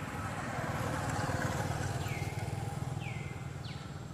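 A motorcycle passing along the road, its engine swelling about a second in and then fading away. In the second half, short high chirps falling in pitch repeat a few times.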